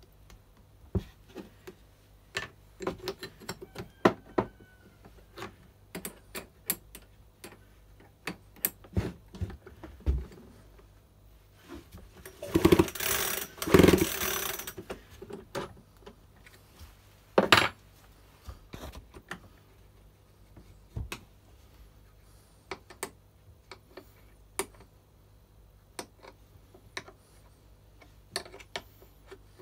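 Hands working on a chainsaw with tools: scattered clicks, taps and knocks of metal and plastic parts, with a louder rasping noise lasting a couple of seconds about twelve seconds in.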